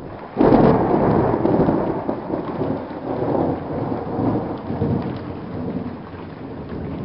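Thunder: a sudden loud crack about half a second in, then a long rumble that slowly fades, with rain falling underneath.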